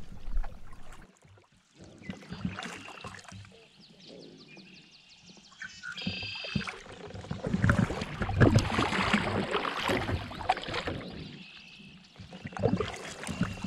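Double-bladed paddle strokes splashing through weedy creek water, loudest in the middle, with growling from the marshy shoreline whose maker is unknown: first taken for a bobcat, though the marsh leaves the paddler unsure.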